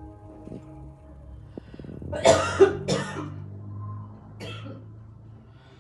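Two loud, harsh coughs in quick succession about two seconds in, then a fainter third cough, over a low steady hum.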